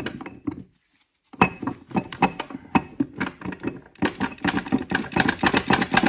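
Steel gears and shafts inside an opened NV4500 five-speed transmission case clinking and rattling in quick ringing metal knocks as the stuck countershaft and bearing are worked to get them loose. There is a brief break about a second in.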